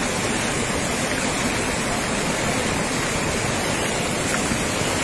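Floodwater rushing down a swollen mountain stream, a steady, unbroken loud rush of muddy torrent.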